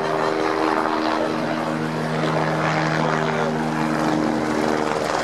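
A steady engine drone holding several fixed pitches, over a rushing noise.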